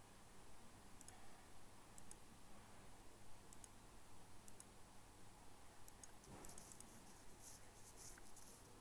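Near silence: faint room tone with a series of soft computer mouse clicks, mostly in quick press-and-release pairs about once a second, closer together near the end.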